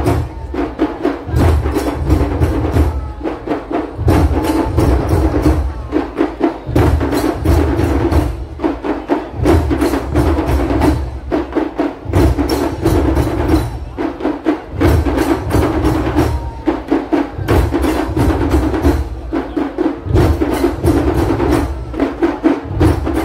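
Loud drum music: rapid, sharp, high drum strokes over heavy low beats that come in repeated groups, in the manner of dhol-tasha drumming.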